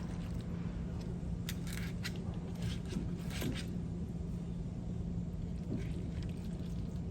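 A steady low hum, with a few faint short crackles and rustles near the middle.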